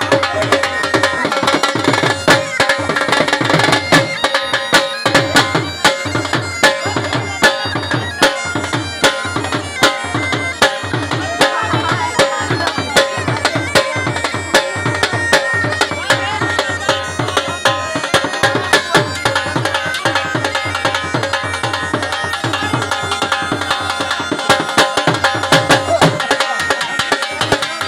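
Live folk dance music: a reed wind instrument plays a sustained, droning melody over steady beats on a dhol drum.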